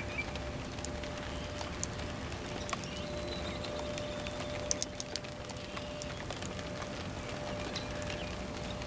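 Outdoor ambience by floodwater: a steady low hiss with scattered faint ticks, a few faint bird chirps here and there, and a faint steady hum underneath.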